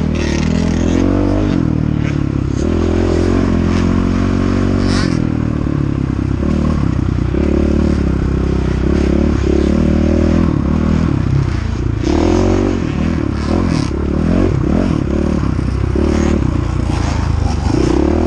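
KTM 500 EXC single-cylinder four-stroke dirt bike engine running hard, its pitch rising and falling over and over as the throttle is opened and closed.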